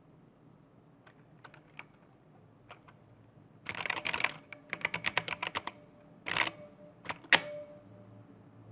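Zowie Celeritas II mechanical keyboard with Adomax Flaretech A optical switches, a painted steel plate and a plastic case, struck on random keys. A few scattered clicks at first, then a quick flurry of key presses about four seconds in, a run of separate keystrokes, another short flurry, and a couple of sharp single presses near the end, the last of them the loudest.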